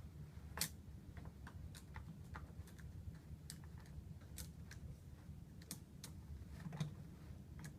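Scattered light clicks and taps of chainsaw parts being handled, as the side cover is fitted over the guide bar and chain, with a low steady hum underneath.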